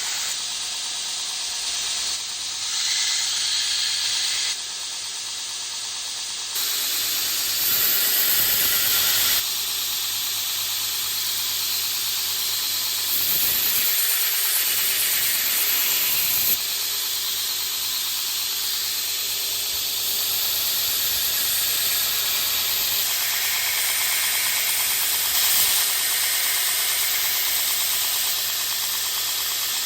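Steady loud hissing, stepping up and down in level every few seconds.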